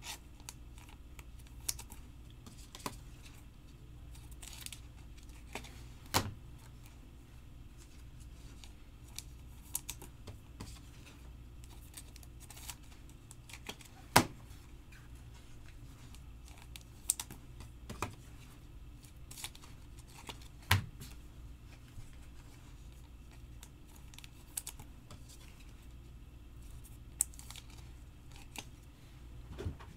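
Trading cards being handled on a table: scattered light clicks and taps at an irregular pace, with a few louder knocks.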